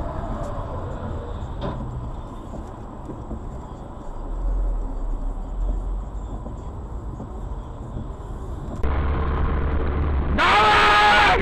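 Steady road and engine noise from inside a moving car, picked up by a dashcam, with a single click about two seconds in. After an abrupt change near the end, a loud, sustained pitched sound starts and runs for about a second.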